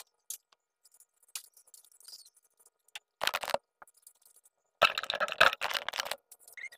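Scraping and rattling on a tiled floor as a room is swept with a broom and a metal rocking chair is shifted. There is a short stretch about three seconds in and a longer one about five seconds in.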